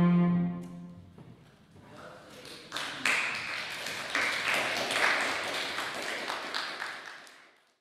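A cello's final low note is held and dies away within the first second. Then a small audience claps from about three seconds in, and the clapping fades out near the end.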